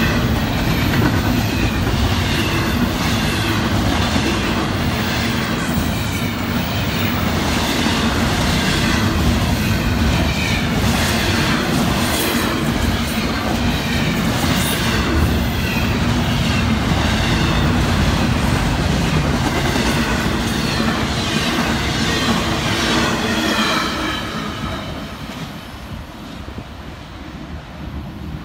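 Double-stack intermodal well cars of a freight train rolling past at speed, wheels clattering over the rails with a wavering squeal from the wheels. The noise falls away about four seconds before the end as the last cars pass.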